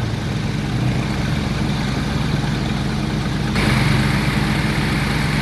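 A vehicle engine idling steadily nearby, with an even hiss that turns abruptly louder about three and a half seconds in.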